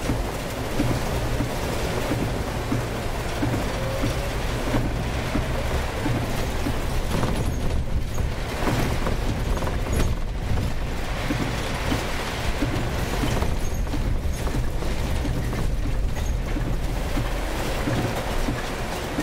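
Inside the cab of a Scania City Wide city bus driving in torrential rain: a steady low engine and road hum under the hiss of heavy rain on the windscreen and tyres on the flooded road, with scattered short splashes and knocks.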